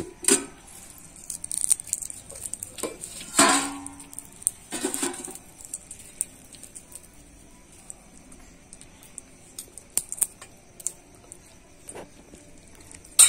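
Stainless steel plates clinking and tapping now and then as they are handled, with a few louder knocks in the first few seconds and a sharp one at the very end.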